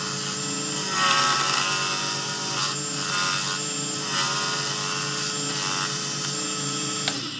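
Lathe spinning a resin pen blank while a turning tool scrapes and cuts the resin, a steady motor whine under a scratchy cutting noise. A sharp click comes just before the end, and then the lathe stops.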